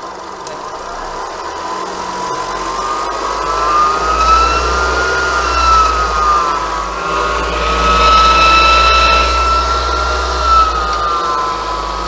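Renault Duster's H4M 1.6 16V engine held at about 1750 rpm, picked up through a long screwdriver pressed to the belt-driven accessories. A steady howl near 1 kHz rises and falls a little with the revs, over the engine's low hum, which grows louder about two and a half seconds in. It is the whine that shows at that speed, which the mechanic puts down to the alternator's front bearing, with the noise also carried to the A/C compressor.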